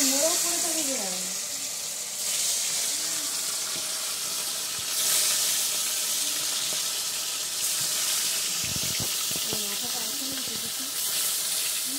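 Fish pieces frying in hot oil in a steel kadai over a wood fire: a steady sizzling hiss that swells up several times, each time a fresh piece goes into the oil.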